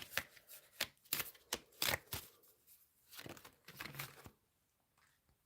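Tarot cards being shuffled and drawn: a quick run of card snaps and rustles over the first two seconds, then softer handling of the cards.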